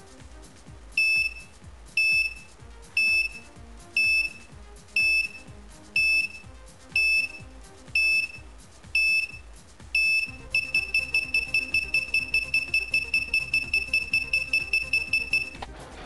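Novalert garage door closer's warning beeper: ten high beeps about a second apart, then faster beeps, about five a second, for roughly five seconds before it stops. This is the 15-second warning the unit gives before it closes the garage door.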